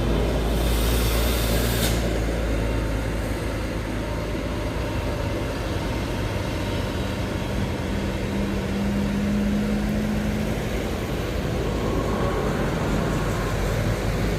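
Heavy diesel road traffic: a steady low engine rumble with a sharp hiss of air lasting about a second near the start, then an engine note swelling for a few seconds in the middle as a large vehicle goes by.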